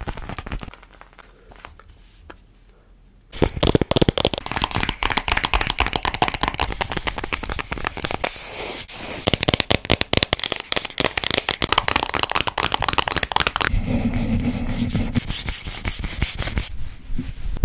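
Close-miked ASMR triggers: hands tapping, scratching and rubbing small objects, including a pink cylindrical container. A quiet opening gives way, a few seconds in, to a long stretch of quick crackly taps and scratches. Near the end a shorter, lower rubbing sound follows, then a brief lull.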